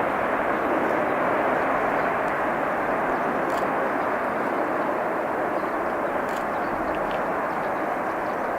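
EA-6B Prowler's twin J52 turbojet engines, a steady jet rumble that slowly fades.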